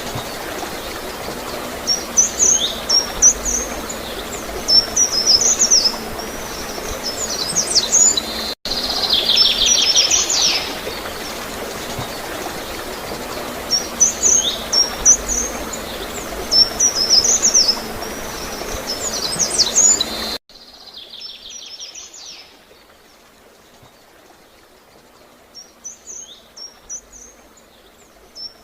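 Water gurgling and flowing steadily, with small songbirds chirping in quick clusters of high notes and a buzzy trill. About two-thirds of the way through, the whole sound drops suddenly to much quieter and carries on faintly.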